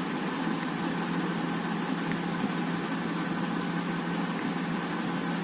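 Steady machine-like hum with a constant low tone underneath and an even hiss, and a couple of faint ticks.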